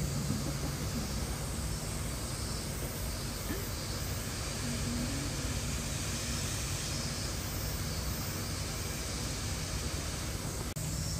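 Steady outdoor ambient noise: an even hiss over a low rumble, with no distinct event.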